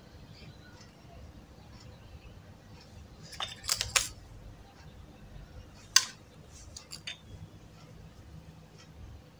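Makeup items being handled: a few sharp clicks and taps, a quick cluster about three and a half to four seconds in and the loudest single click about six seconds in, followed by a few lighter ticks.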